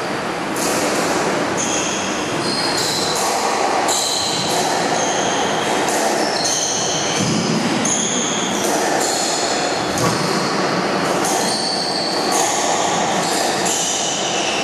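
Squash rally: players' court shoes squeaking on the wooden court floor, many short high squeaks coming and going, with knocks of the ball off racquets and walls.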